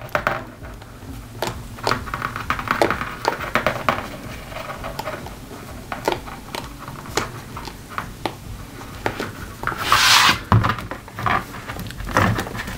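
Metal spiral binding coil being twisted by hand through the punched holes of a stack of planner pages: many small clicks and ticks of the wire against the paper, with rubbing and rustling between them and a louder rustle about ten seconds in.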